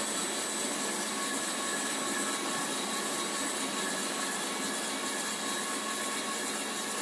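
Steady whirring machine noise with several faint, high, steady whining tones, unchanging throughout; no welding arc is heard.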